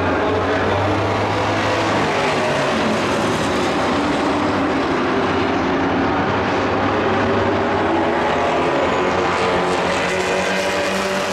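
Dirt-track race trucks running at speed around the oval, several engines heard at once as a loud, steady, overlapping engine noise.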